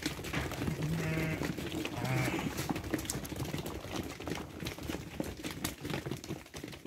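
Sheep bleating twice, briefly, about one and two seconds in, over the constant scuffle and patter of many hooves as the flock of sheep and lambs moves about.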